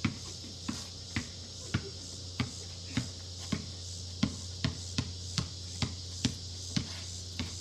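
Basketball being dribbled on a concrete driveway: a steady run of bounces, about two a second.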